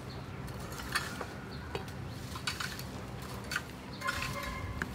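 Light clicks and scrapes of a small kitchen knife trimming and peeling green onions by hand, with a short ringing sound a little after four seconds in.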